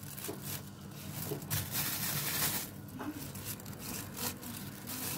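Kitchen knife cutting through fresh cucumber held in the hand: several short cutting strokes, a few seconds apart at first and then closer together.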